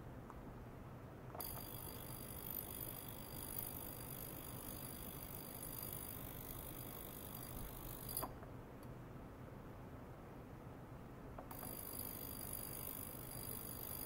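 Small ultrasonic cleaning bath running with a faint high-pitched hiss and whine. It starts with a click about a second in, stops sharply about eight seconds in, and starts again about three seconds later. A low steady hum sits underneath.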